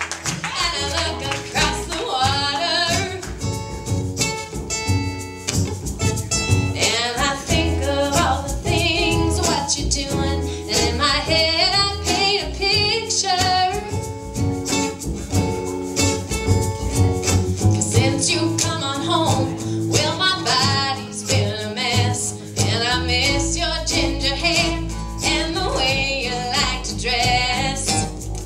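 Live acoustic band music: strummed acoustic guitar, upright bass and djembe, with singing. The bass comes in deeper and fuller about 23 seconds in.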